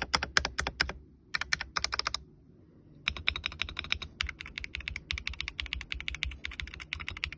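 Typing on a MonsGeek M1W mechanical keyboard with Akko V3 Cream Yellow Pro linear switches: quick keystroke clacks, a short pause a little over two seconds in, then a long, fast, even run of keystrokes.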